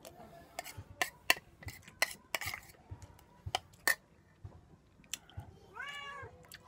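A person eating braised pork leg, chewing and smacking with many short sharp clicks of a spoon against the plate. A cat meows once, briefly, near the end.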